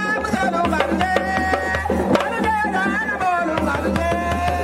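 Djembe played by hand in a dense run of strokes, with a held, wavering melody line over it.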